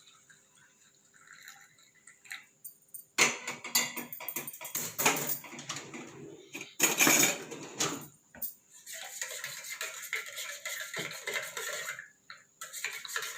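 A spoon stirring hot milk in a cup, clinking and scraping against the sides in quick runs, to dissolve jaggery and spice powders. It starts about three seconds in and pauses briefly near the end.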